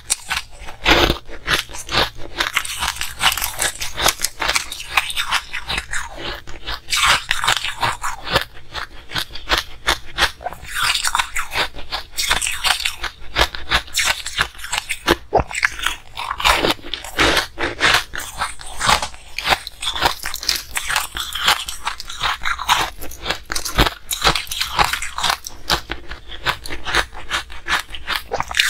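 Close-miked crunching and chewing of hard frozen ice balls: a dense, irregular run of crisp crunches as the ice is bitten and ground between the teeth.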